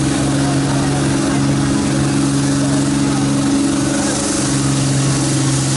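Dodge Ram pickup's Cummins turbo-diesel running at a steady speed after its pull, with a small change in engine note about four seconds in.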